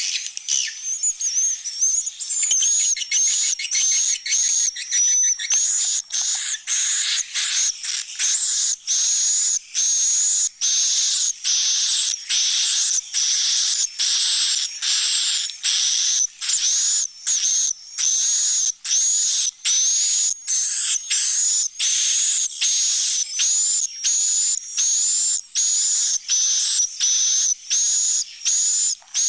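Swiftlet roosting calls (suara inap): a fast buzzing twitter for the first few seconds, then high chirping calls repeating steadily, about one and a half a second. This is the lure sound played inside a swiftlet house's roosting room to make swiftlets feel safe among a colony of chicks and adults.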